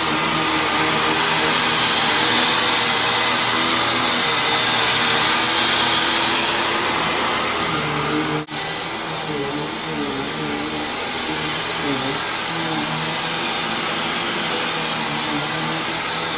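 Hoover WindTunnel Lite upright vacuum cleaner running steadily, its motor tone wavering up and down, with a momentary drop about eight seconds in.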